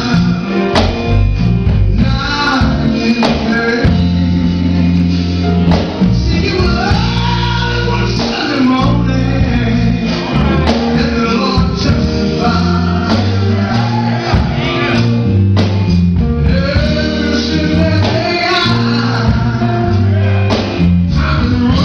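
Gospel song with a man singing over a band with bass and drums.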